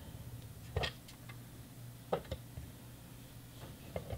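A few light clicks and taps of a plastic model railroad covered hopper being handled and set down on a tabletop, over a faint steady low hum.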